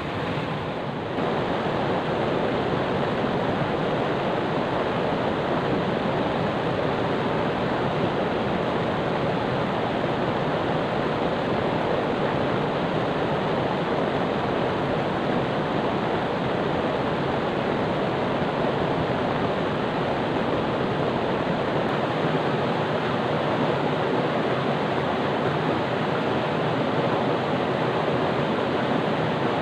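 Rushing river water: a steady, even noise of fast-flowing water.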